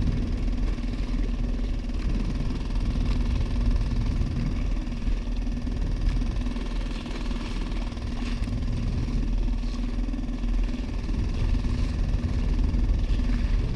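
The gas motor of a motorized fishing kayak running at a steady speed with a constant hum, under a heavy low rumble of wind on the microphone.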